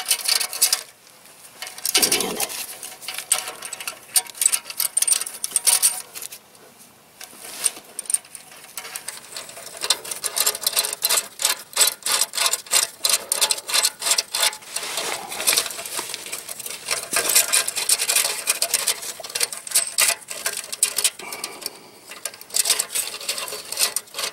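Stainless steel exhaust band clamp hardware clicking and clinking as its bolts and nuts are fitted and run on by hand: scattered metal clicks at first, then rapid continuous ticking from about nine seconds in.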